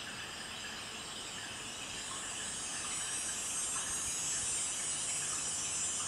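Steady outdoor background noise: an even, high-pitched hiss or buzz that grows louder about halfway through.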